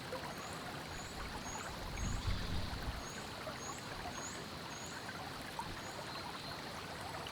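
Slick Rock Creek flowing, a steady wash of running water. Over it a short, high chirp repeats about twice a second, and there is a brief low rumble about two seconds in.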